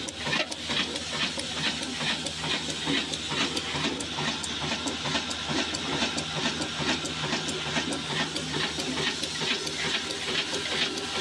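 Old single-cylinder slow-speed diesel engine running steadily with an even, regular knocking beat, driving a flour mill by belt.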